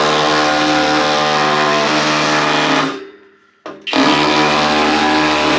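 Cordless drill on hammer setting driving a VibraClean head against a steel panel radiator, buzzing and rattling the radiator to shake loose magnetite and sludge inside it. It stops about three seconds in and starts again about a second later.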